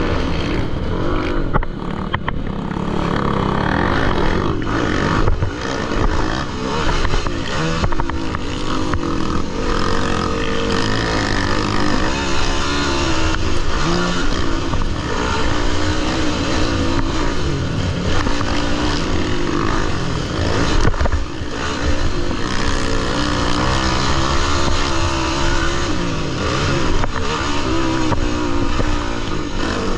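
Motocross dirt bike engines racing, revving up and dropping off again and again without a break.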